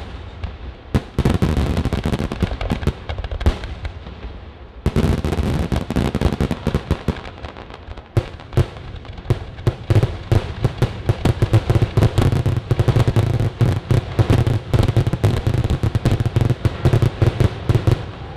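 Fireworks finale: aerial shell bursts, then from about five seconds in a dense, rapid barrage of salutes (loud report shells), thickest in the second half and stopping abruptly near the end.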